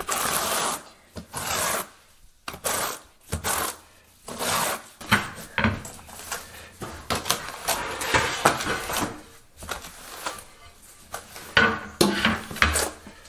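Steel notched trowel scraping and combing tile mortar across a floor membrane in repeated strokes, roughly one a second.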